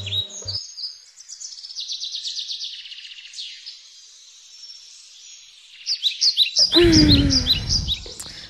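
Birds chirping: a steady run of short, quick, falling chirps. Music stops about half a second in, and about seven seconds in a louder rushing noise with a falling tone breaks in for over a second.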